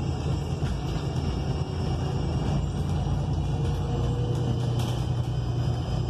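Inside a 2020 ENC Axess bus under way: its Cummins Westport L9N natural-gas engine running steadily under a constant low hum and road rumble, heard from the passenger cabin.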